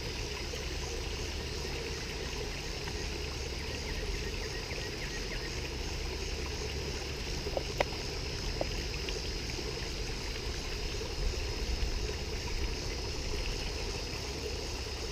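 Steady rush of falling water from a pond fountain, with a couple of faint clicks about halfway through.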